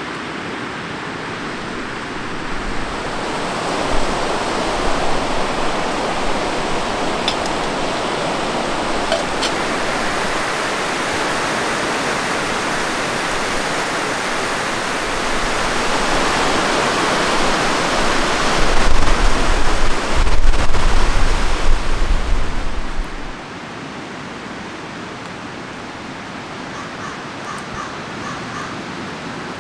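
Waves breaking on a stony lakeshore in strong wind: a steady rush of surf, with wind rumbling on the microphone for several seconds past the middle. About two-thirds of the way in it drops suddenly to a quieter steady hiss.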